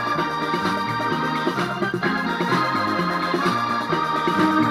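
Electronic organ music with a moving bass line and held melody notes, played back through a homemade TEA2025B stereo amplifier chip on a breadboard.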